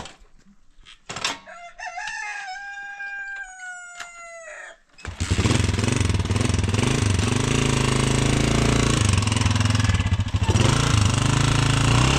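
A rooster crows once, about a second in: one long call that sags slightly in pitch before breaking off. About five seconds in, a loud engine cuts in abruptly and keeps running steadily.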